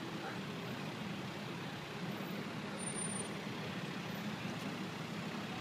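Steady street traffic noise with a vehicle engine idling close by, a low, even hum.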